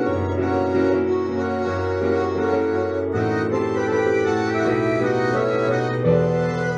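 Instrumental music: sustained chords over a bass note that changes every second or two, with no singing.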